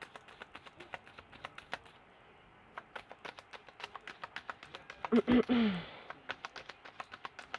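Rapid, irregular clicking and snapping of a tarot deck being shuffled in the hands, thinning out briefly about two seconds in. A short hummed "mm" falling in pitch comes just past five seconds, the loudest moment.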